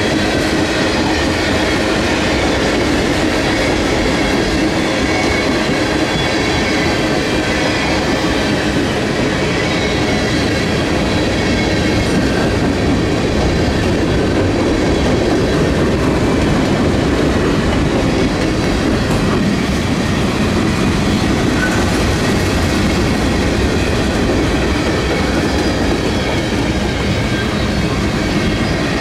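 Freight cars of a manifest train rolling past: a steady, unbroken noise of steel wheels on rail, with faint high-pitched wheel squeal running through it.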